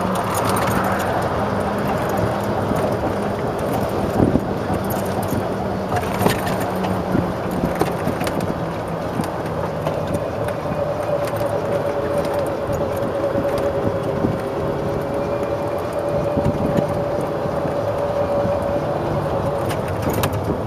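1993 Club Car DS golf cart running along a paved path, with a steady whine and a few sharp rattles and knocks from the cart.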